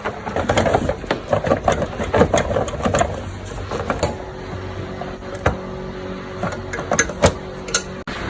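Jeep Renegade 2.4L four-cylinder engine running, with a dense rattle for about the first three seconds, then a steady hum broken by sharp, irregular pops. This is the popping and rattling noise that the engine is being checked for.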